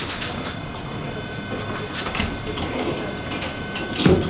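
Inside a Prague tram, a steady, high electronic warning tone sounds for about four seconds. It cuts off and a heavy thump follows as the sliding doors close.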